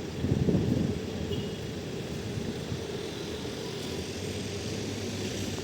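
TCDD DE 33000-class diesel locomotive running with a steady low rumble, with a brief louder rush in the first second.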